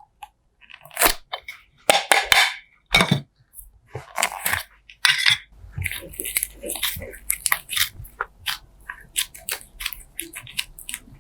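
Slime being squished and worked by hand: an irregular run of crunchy crackles and small pops, denser and louder in the first half.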